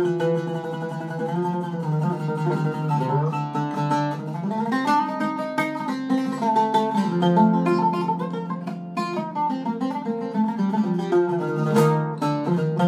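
Iraqi-style Zeryab oud with a cedar top, played solo with a plectrum: a melodic passage of plucked single notes with runs of fast repeated strokes.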